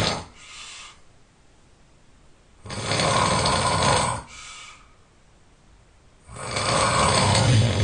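A person snoring loudly in slow, regular breaths, about one every three and a half seconds. Each loud snore is followed by a shorter, softer breath.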